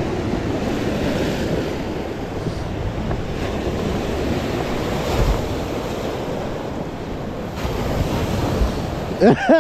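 Lake Superior waves washing steadily onto a rocky cobble shore, with wind buffeting the microphone. Near the end a brief voice slides up and down in pitch.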